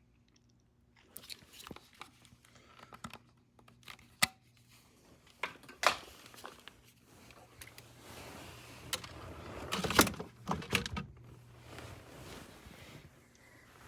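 Scattered clicks and knocks with rustling, like something being handled, loudest about ten seconds in; no music is playing.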